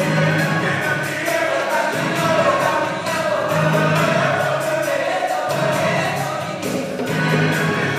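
Gospel choir music with singing, playing on without a break.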